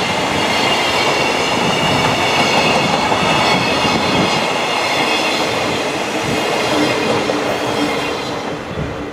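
Container flatcars of a JR Freight train rolling past close by: a dense, steady noise of steel wheels running on the rails, with thin high ringing tones above it. The sound starts to fade near the end as the last wagon goes by.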